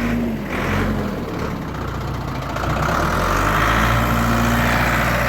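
A truck engine running steadily, growing somewhat louder from about three seconds in.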